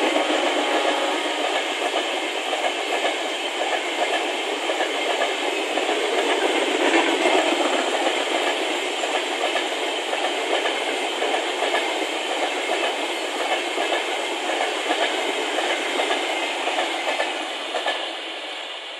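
LHB passenger coaches of an express train rolling past at speed: a steady rush of wheels on rail with quick, dense clatter over the rail joints. It fades about a second before the end as the last coach goes by.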